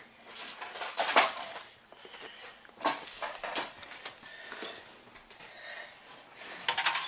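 Plastic Lego pieces clacking and clattering as they are handled: a series of separate sharp clicks, the loudest about a second in and a quick cluster near the end.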